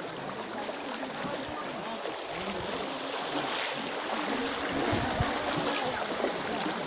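Steady rush of flowing floodwater, with faint voices of people in the distance.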